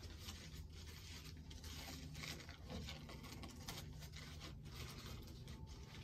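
Faint, irregular rustling and scraping noises over a low steady hum.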